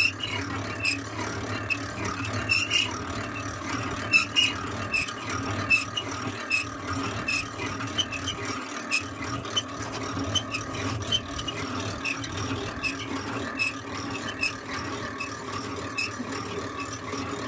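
Honey extraction machine running with a steady hum and a regular ticking, about two to three ticks a second.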